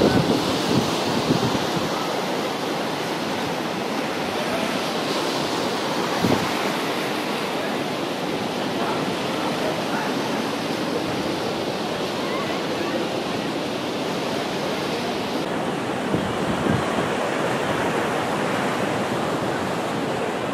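Ocean surf washing onto a sandy beach, heard as a steady wash of noise. Wind buffets the microphone in a few short gusts.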